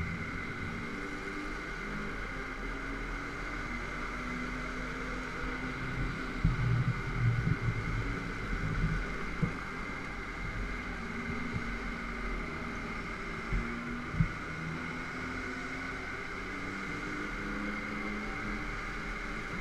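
Go-kart running at speed, heard from on board: a steady high whine over a low drone that rises and falls as the kart speeds up and slows for the corners. There are heavier rumbles and rattles in the middle and two sharp knocks a little later.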